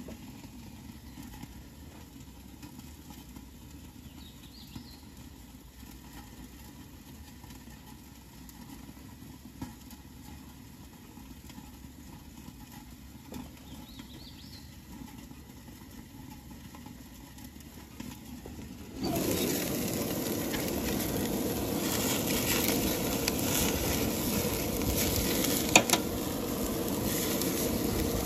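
A faint steady hiss, then suddenly, about two-thirds of the way in, loud sizzling and crackling as rib-eye steaks sear over the open flames of a propane gas grill. A sharp click or two near the end, as of tongs on the grate.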